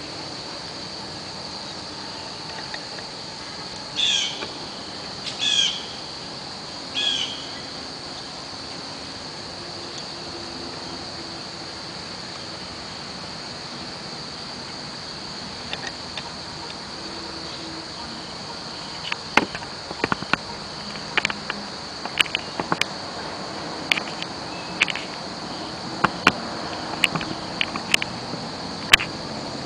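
Steady high-pitched insect buzz, like crickets, with a few short bird chirps in the first third. A scattered run of sharp clicks and taps follows in the last third.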